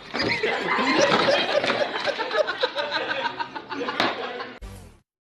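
People laughing loudly with excited voices, then a low thump, and the sound cuts off suddenly about five seconds in.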